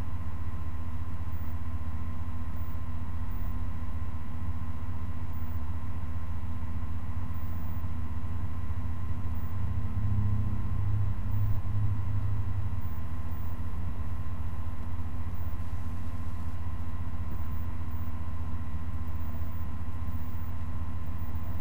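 A steady low machine-like hum with a faint constant high whine above it, swelling slightly about ten seconds in.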